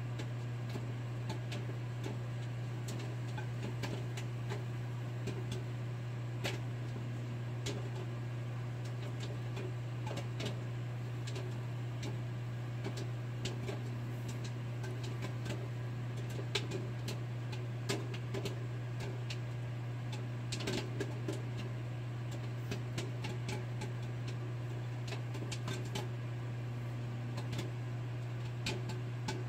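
Microwave oven running with a steady low hum while popcorn kernels inside pop now and then: irregular sharp pops, a few louder ones, with a small cluster about two-thirds of the way through.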